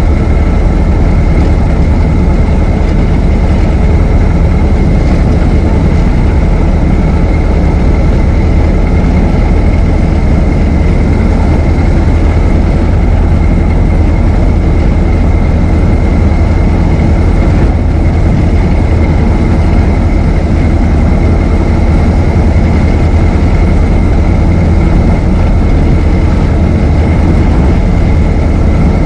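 Ford Model T's four-cylinder engine running steadily as the car drives along, a deep even rumble with no change in speed.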